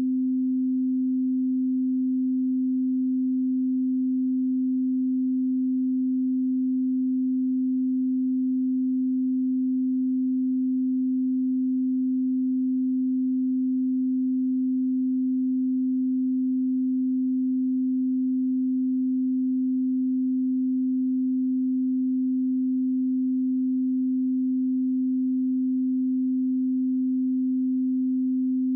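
A steady 258 Hz pure sine-wave test tone, one low hum-like pitch held without change.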